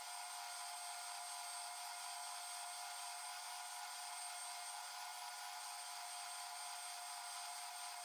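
Power sanding drum running steadily with a constant whine and hiss, as a small metal knife fitting is held against its abrasive sleeve.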